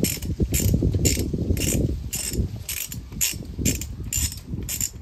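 Hand socket ratchet being swung back and forth, a short burst of ratchet clicks about twice a second, as a headlight mounting bolt is undone.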